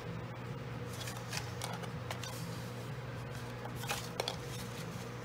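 Patterned paper being folded and creased along score lines by hand: soft rustling and crinkling, with a few sharper crackles about four seconds in.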